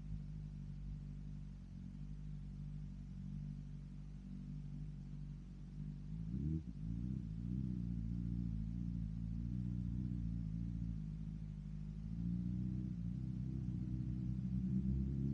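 2022 BMW S1000RR's inline-four engine with an M4 exhaust running under way at a steady pitch. The revs sweep up briefly about six and a half seconds in and climb again near the end.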